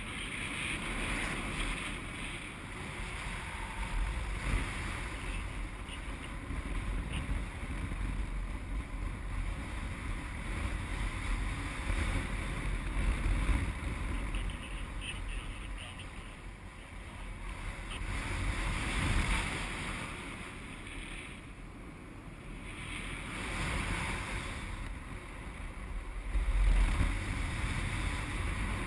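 Wind rushing over the microphone of a GoPro on a paraglider in flight: a steady rumbling rush that swells and eases every few seconds, loudest near the end.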